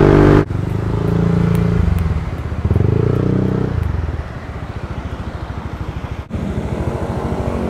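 Yamaha NMAX 155 scooter's single-cylinder engine running under way, its note rising for about a second mid-way and then easing off again. The sound breaks off abruptly twice, at cuts in the footage.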